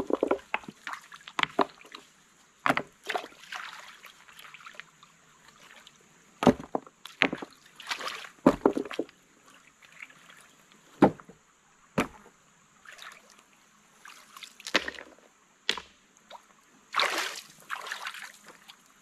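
Stones knocking against each other and splashing in shallow stream water as rocks are lifted and set in place: an irregular run of sharp clacks with sloshing water between them.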